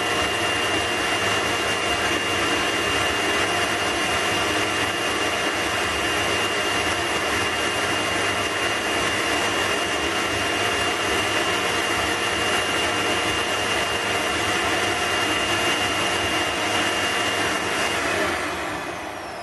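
Vacuum cleaner motor running steadily with a high whine, pulling air through a vacuum-forming table to draw a PETG sheet down over the moulds. About 18 seconds in it is switched off and winds down with a falling whine.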